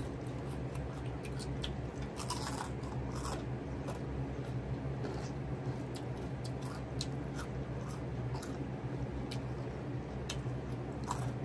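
Chewing and crunching mouthfuls of Caesar salad pizza, with many small scattered crunches over a steady low hum.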